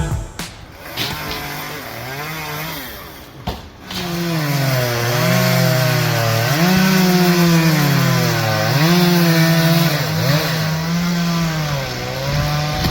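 Chainsaw engine running, its pitch rising and falling over and over as the throttle is worked.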